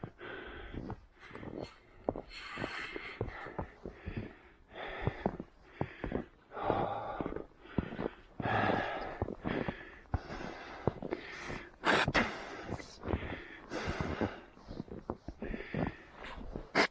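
A runner breathing hard, with a noisy breath about once a second.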